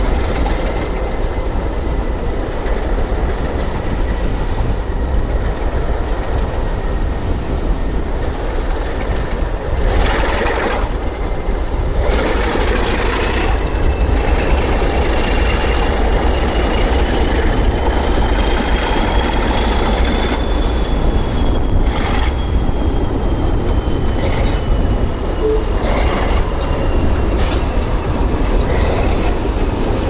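Freight train rolling by: steady rumble and wheel clatter over the rails, with a thin wheel squeal that slowly drifts up and down in pitch and a few sharp knocks along the way.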